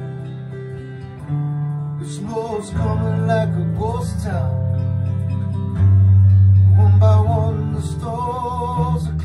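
Acoustic guitar song in a passage without lyrics: a wavering melody line over long held low notes, with a loud held bass note from about six to seven seconds in.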